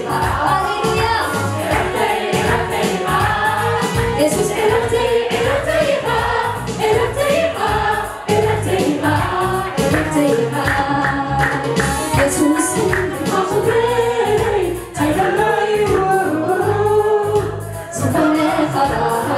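Gospel worship song sung in Tigrinya by a female lead singer with a choir of backing singers, over instrumental accompaniment.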